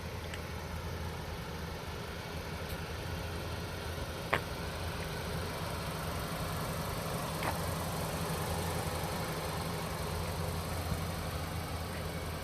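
Audi A3's turbocharged four-cylinder engine idling steadily, with two short ticks along the way.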